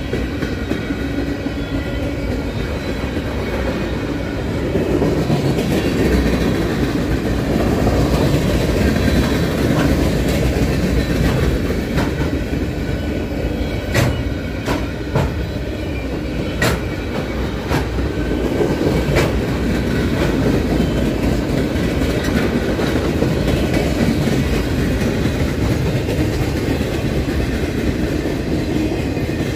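Empty railroad flatcars of a freight train rolling past close by: a steady rumble of steel wheels on the rails, with several sharp clicks about halfway through.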